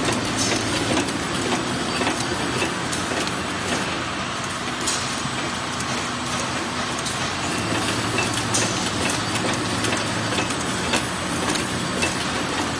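Automatic snack flow-packing machinery running: a steady mechanical clatter over a low hum, with scattered sharp clicks.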